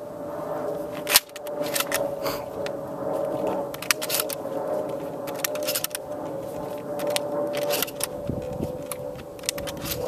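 Shotgun shells being pushed one after another into a shotgun's magazine tube: a run of metallic clicks and scrapes, with a sharp clack about a second in, over a steady hum.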